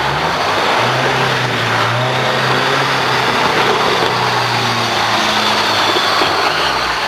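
Car engine held at high revs as the sedan drifts in tight circles, with a steady hiss of tyres sliding on the tarmac. The revs dip briefly near the end.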